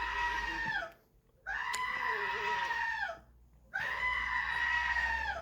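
A recorded sound-effect clip of a high, held scream, played three times in a row with short gaps between, each cry holding one steady pitch and dropping off at the end.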